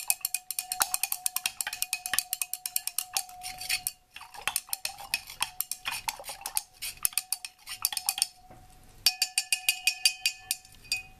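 A stirring rod clinking rapidly against the wall of a glass beaker, the glass ringing with a steady note under the clinks, while a silver chloride slurry in hydrochloric acid is stirred. The clinking breaks off briefly about four seconds in and again a little past eight seconds, then stops just before the end.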